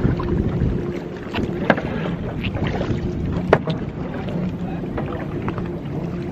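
Kayak being paddled across choppy water: wind rumbling on the microphone over water sloshing and paddle splashes, with a couple of sharp knocks, about 1.7 and 3.5 seconds in.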